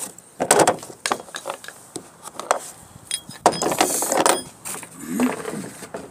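Handling noise: irregular clicks, knocks and rustling, with a longer rushing scrape a little past the middle.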